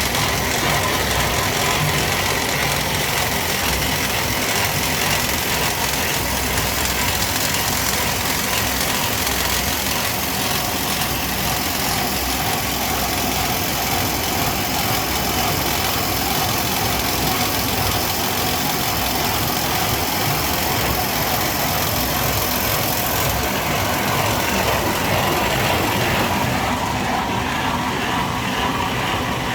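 Wood pellet production machinery running steadily: a dense, constant mechanical noise with a faint steady whine.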